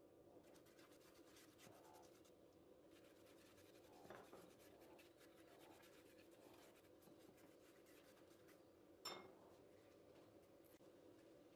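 Near silence: a silicone pastry brush rubbing a thin coat of oil over gözleme in a non-stick pan, heard as a few soft scrapes over a faint steady hum, with one light click near the end.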